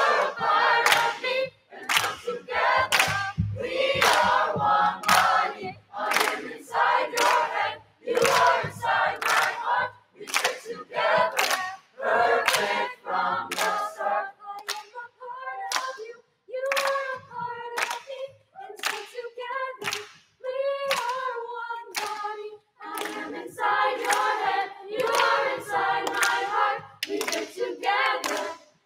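A choir singing, with sharp hand claps keeping a steady beat about twice a second. The singing thins out in the middle and comes back fuller near the end.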